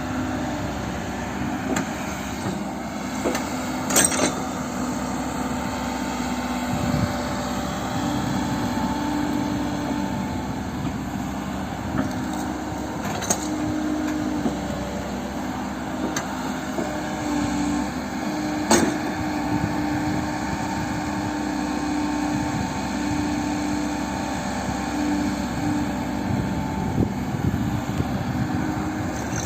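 Heavy diesel machinery running steadily at an excavator loading site, its engine note stepping up and down as it works under load. Three sharp bangs stand out, about 4, 13 and 19 seconds in.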